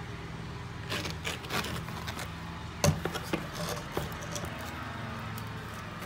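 Handling noise of an asphalt roofing shingle being fitted over a small plywood birdhouse roof: scattered scrapes, rubs and light taps, with a sharp knock about three seconds in, over a steady low hum.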